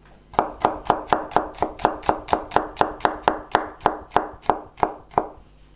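Chef's knife chopping garlic on a wooden chopping board: a quick, even run of knocks, about four a second, that stops a little before the end.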